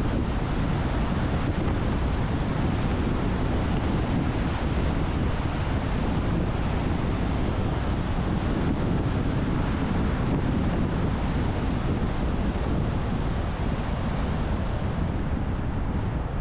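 Steady, deep rumble of road and wind noise from a moving car, with no sudden sounds.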